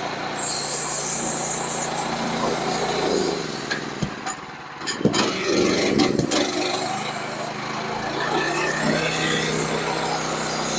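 Small engine of a portable sawmill running steadily, with a few sharp knocks about four to six seconds in.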